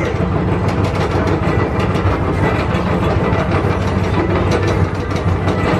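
Tomorrowland Transit Authority PeopleMover car running along its track, driven by linear induction motors: a steady low hum with faint irregular clicks.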